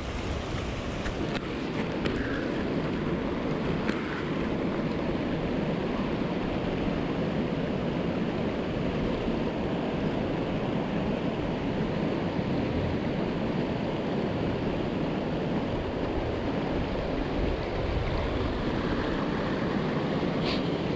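Steady rush of shallow river water running over sandstone ledges and boulders.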